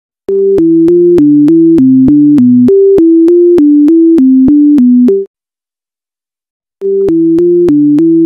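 Synthesizer tune in two voices: a quick run of short stepped notes with a click at each note, breaking off about five seconds in and starting again about a second and a half later.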